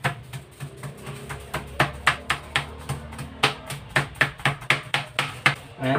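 Meat mallet pounding a chicken breast under a plastic sheet on a plastic cutting board, quick even blows about four a second, flattening and tenderising the meat. Background music plays underneath.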